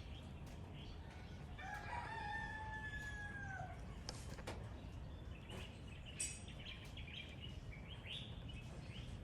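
A rooster crowing once, one drawn-out call of about two seconds that drops in pitch at the end, starting about a second and a half in. Small birds chirp around it throughout.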